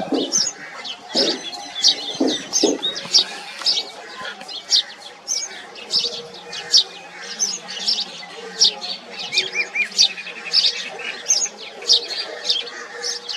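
House sparrows chirping continuously, many short, sharp chirps a second overlapping, as from several birds.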